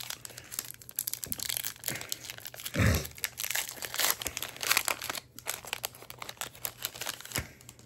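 Foil booster-pack wrapper being crinkled and torn open by hand: an irregular crackling rustle with sharper tearing noises.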